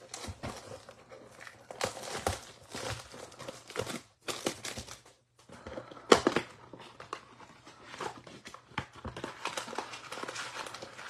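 Cardboard trading-card box being torn open by hand and its wrapped card packs handled, with irregular crackling and rustling. It pauses briefly about four seconds in, and the loudest crackle comes about two seconds later.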